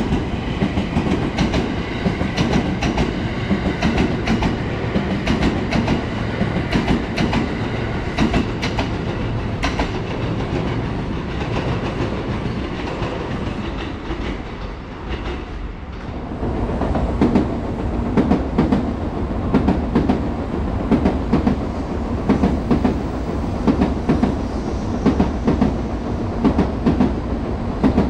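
Electric passenger trains passing. A local train's traction motors whine in several steady tones over the rumble and clicks of its wheels. The sound dips about halfway, then a second train's deeper rumble rises, with wheels clacking regularly over rail joints.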